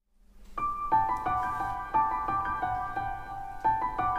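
Background music: a gentle tune of struck notes at an even pace, starting about half a second in after silence.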